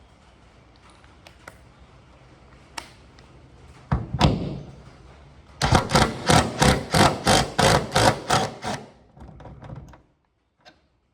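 A heavy thud, then a quick run of about ten knocks, roughly three a second.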